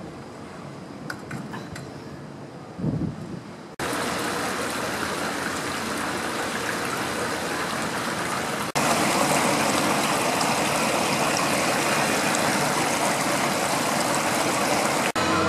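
Steady rush of flowing water, starting abruptly about four seconds in and louder after a cut near the middle. Before it there is quieter open-air background sound with a few faint knocks.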